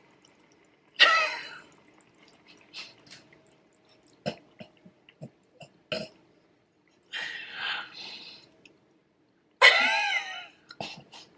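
A woman's gagging, retching throat noise about a second in, a reaction of disgust at the taste of food in her mouth. A few small clicks and a breathy noise follow, and near the end a loud, wavering groan that breaks into laughter.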